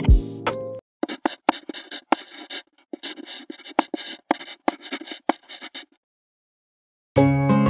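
The last of a short piano jingle, then about five seconds of quick, irregular clicking, a typing or writing sound effect for on-screen text. About a second of silence follows, and acoustic guitar background music starts near the end.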